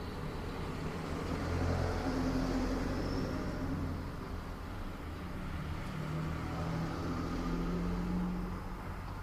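Motor-vehicle engine noise from road traffic: a low engine hum that swells about two seconds in and again near the end, as vehicles pass.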